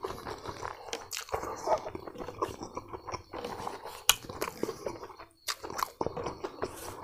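A person chewing a mouthful of food close to a clip-on microphone, with irregular sharp mouth clicks.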